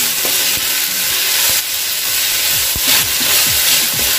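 Shredded cabbage and ginger-garlic paste sizzling in hot oil in a metal kadhai, with a spatula scraping and knocking against the pan again and again as it is stir-fried.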